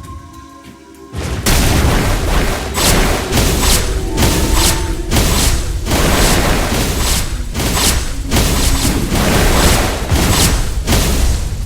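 Dramatic music with heavy booming hits, quiet for the first second and then loud and dense with repeated strikes.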